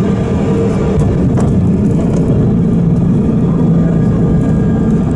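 Airliner cabin noise: a loud, steady roar of jet engines and airflow with a low hum underneath.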